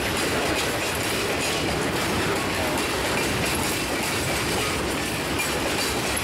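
Railroad cars passing close by, their steel wheels rolling steadily over the rail.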